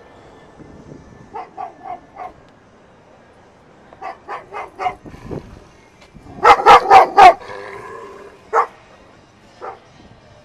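A dog barking in quick runs of about four barks. The third run, a little past halfway, is much the loudest, and two single barks follow it.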